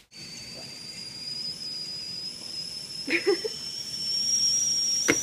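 Stainless-steel stovetop kettle whistling at the boil: one high, steady whistle over a hiss of steam, creeping slightly up in pitch. A brief clatter comes about three seconds in and a sharp click near the end.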